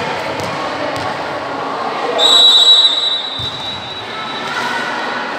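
Referee's whistle blown once in one long, steady, shrill blast lasting just over a second, about two seconds in, signalling the serve.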